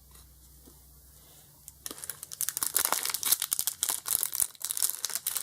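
A foil Pokémon booster pack wrapper being torn and crinkled open by hand: a dense run of crackling that starts about two seconds in, from a pack that is difficult to open.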